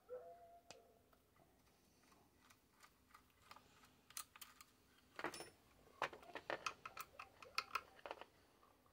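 Faint, irregular metallic clicks and taps of a small screwdriver working the screws of a radio transceiver's sheet-metal chassis. The clicks come in dense clusters, busiest in the second half.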